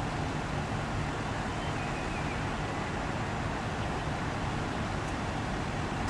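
Idling vehicle engines in stopped traffic: a steady low rumble with an even noise over it.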